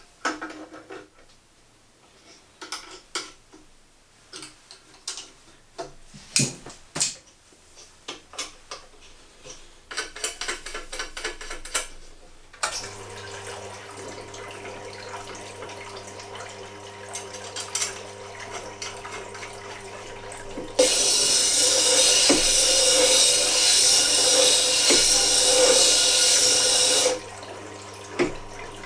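Tool-handling clicks and knocks, then the Tormek T8 grinder's motor starts about 13 seconds in with a steady hum. About 21 seconds in, a chisel's steel bevel is pressed against the spinning coarse diamond wheel and ground with a loud, even hiss for about six seconds, regrinding a worn, dull edge. The grinding stops near the end while the motor keeps running.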